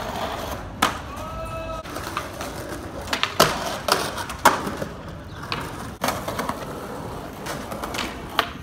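Skateboards rolling on concrete, with sharp clacks of the deck and wheels hitting a concrete ledge, sliding along it and landing back on the ground: one clack about a second in, three close together around the middle, and another about six seconds in.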